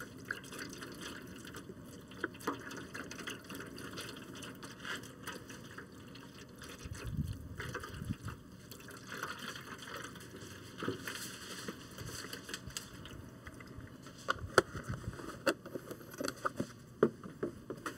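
Beef broth pouring from a carton into a foil pan already holding liquid, a steady trickle and splash. A few light clicks near the end.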